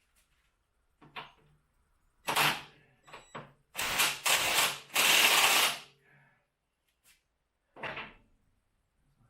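Cordless impact wrench hammering in short trigger bursts, one brief burst then a longer broken run of about two seconds, loosening the subframe bolts.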